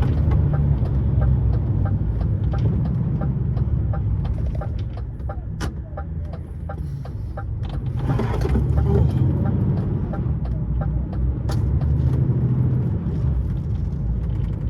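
Lorry's diesel engine running, heard from inside the cab, with a light ticking about three times a second and a brief hiss about eight seconds in.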